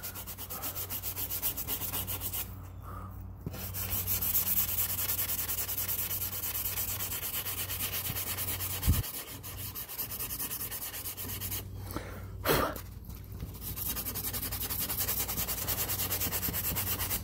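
Sandpaper on a sanding block rubbed back and forth over the chipped, painted edge of an RC plane's wing, in quick, even strokes. The sanding stops briefly twice, and there are a couple of light knocks.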